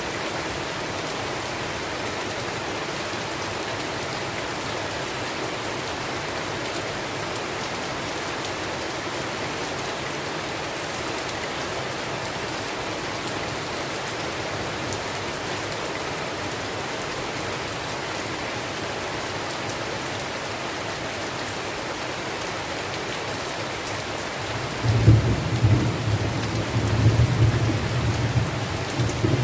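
Steady rain falling in a rainstorm, an even hiss. Near the end a low rumble of thunder rolls in and stays louder than the rain.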